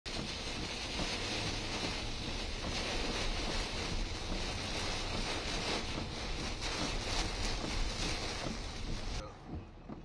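Torrential rain and strong storm winds, with the wind buffeting the microphone in a heavy, steady roar of rain and gusts. About nine seconds in it cuts off suddenly to a quieter wash of rain with a few low wind thumps.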